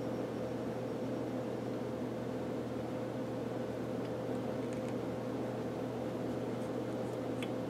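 Atlas 618 lathe running steadily, a constant hum from its motor and orange round-belt drive, with a few faint ticks near the end.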